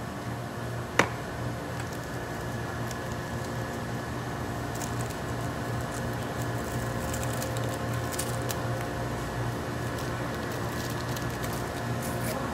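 Steady electrical hum of shop equipment, several even tones held throughout, with one sharp click about a second in and faint crinkly ticks in the middle from small hand handling at the counter.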